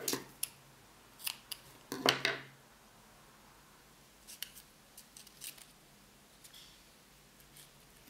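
Scissors snipping thin craft thread: several sharp snips in the first couple of seconds, the loudest about two seconds in. After that come only a few faint light ticks as paper pieces are handled.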